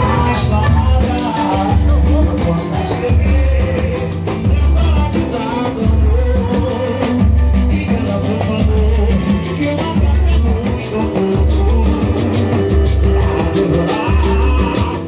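Live pagode band music: a steady bass line pulsing in an even rhythm under acoustic guitar and percussion strokes, with a sung vocal line.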